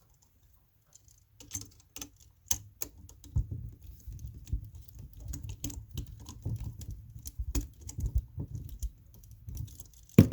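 Hands and small hand tools working on a wall outlet and its wiring: a run of irregular small clicks and taps over low rubbing handling noise, with one louder click near the end.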